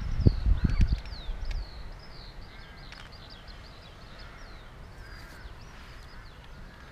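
Small birds chirping and twittering steadily in the background, many quick high chirps that rise and fall in pitch. A low rumble on the microphone fades out about a second in.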